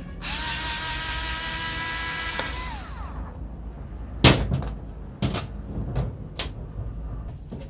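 Small electric screwdriver motor running with a steady whine for about two and a half seconds, then winding down with a falling pitch and stopping. After that come several sharp knocks from the reciprocating saw's metal housing being handled, the loudest about four seconds in.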